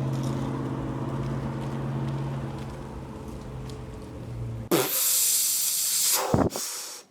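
A steady low mechanical hum like an engine running, fading slowly over about five seconds, then a sudden switch to a loud hiss.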